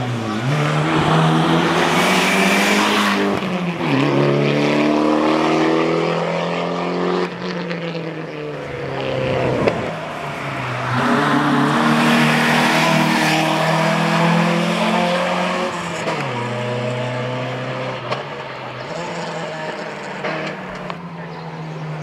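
Rally car engines at full throttle on a tarmac stage. The pitch climbs through each gear and drops sharply at the shifts and lifts, several times over. The loudest pass comes near the middle, from an Opel Kadett rally car.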